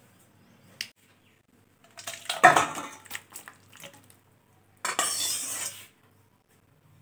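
Metal kadai and stainless-steel bowl clattering and scraping as chicken curry is served out of the pan: a small click, then a loud clatter about two seconds in, then about a second of scraping about five seconds in.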